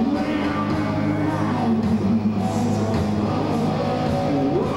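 A heavy metal band playing live, with electric guitar, bass and drums under a male lead singer's vocal.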